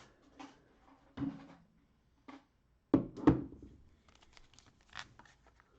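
Trading card cello packs being handled on a table: a few knocks and thunks, the loudest about three seconds in, with light plastic rustling and small ticks between.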